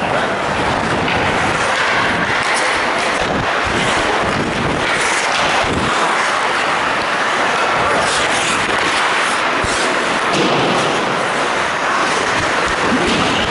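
Ice hockey play heard up close from a goalie's mask camera: a continuous rushing noise of skates on ice, with scattered sharp knocks and clacks of sticks and puck.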